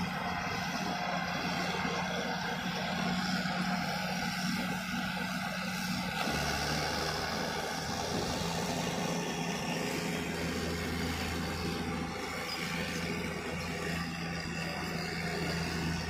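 Crawler bulldozer's diesel engine running steadily as the dozer pushes earth with its blade. Its note drops to a lower pitch about six seconds in and holds there.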